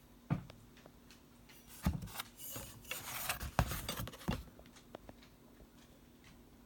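Handling noises: a string of knocks and clicks with some rubbing, busiest around the middle. There is no whistle tone.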